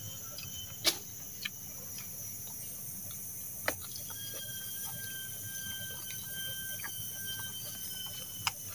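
Steady high-pitched drone of forest insects, with a thin whistling tone held from about four seconds in until just before the end. A few sharp clicks of a metal fork against the leaf plate as he eats.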